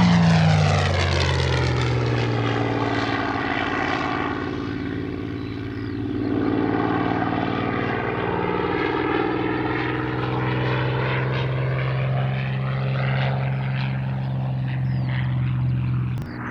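Piston-engined World War II fighter flying past: a propeller-engine drone whose pitch drops as it passes in the first couple of seconds, then a steady drone as it flies on, swelling and fading. The sound drops off abruptly near the end.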